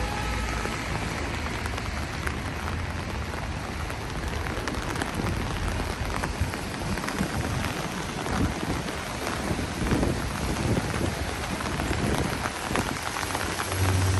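Steady rain falling on a city street, with many small drop taps over a constant hiss and a low rumble underneath.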